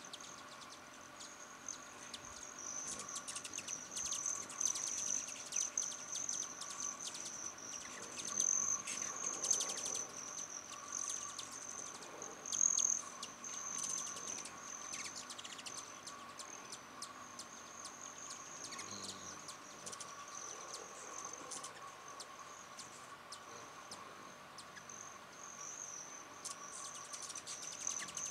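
Hummingbirds chittering at a nectar feeder in rapid bursts of thin chip calls, thickest in the first ten seconds and again near the end, over a steady high-pitched insect trill.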